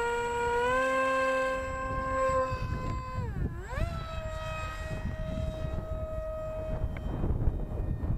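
Radio-controlled model MiG-35 jet's motor whining at high throttle, holding a steady note, then dipping and climbing back to a higher steady note about three and a half seconds in as the throttle is worked, and fading out near the end. Wind rumbles on the microphone underneath.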